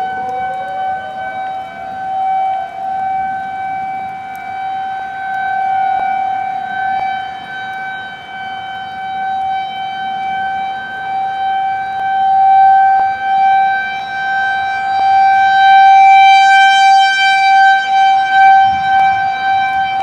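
Outdoor warning siren winding up from a low pitch to a high pitch over about the first two seconds, then holding one steady high wail that swells and fades in loudness.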